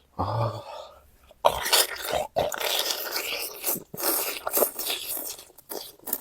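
Close-miked eating: a short sound just after the start, then from about a second and a half in, continuous irregular crunching and chewing of squid with crisp fresh vegetables.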